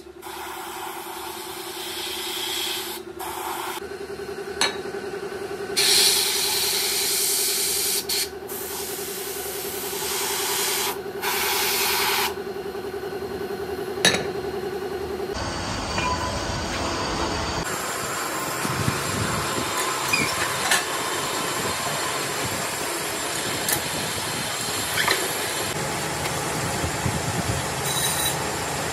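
Spray gun hissing in on-and-off bursts as paint is sprayed onto a car brake disc, over a steady hum. About fifteen seconds in this gives way to a metal lathe machining a brake disc, with a faint high whine from the cut.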